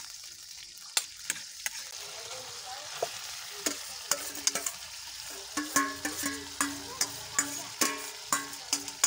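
Food sizzling in a metal wok while a metal spatula stirs and scrapes: onions, tomato and smoked fish, then grated papaya, being stir-fried. Frequent sharp clicks of the spatula on the wok, growing busier from about halfway, with short ringing clanks.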